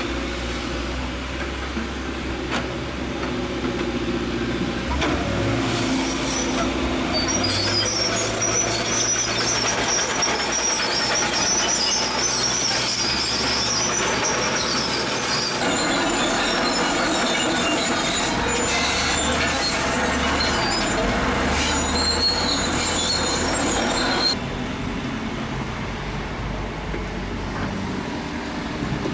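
Zoomlion bulldozer's diesel engine running under load as it pushes gravel, with high metallic squealing from its steel crawler tracks for about ten seconds in the middle. The engine note shifts abruptly a few times.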